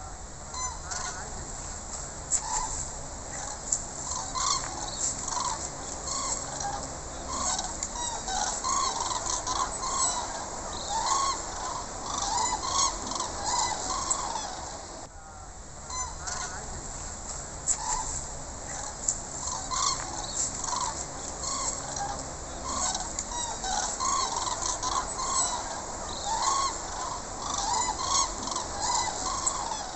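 A large migrating flock of common cranes calling overhead, many rolling calls overlapping continuously, with a brief break about halfway through.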